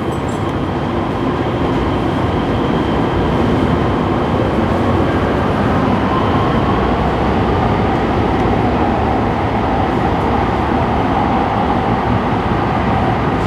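Light rail train running through an underground tunnel, heard from inside the car: a steady, loud rumble of wheels on rail with a faint whine whose pitch drifts.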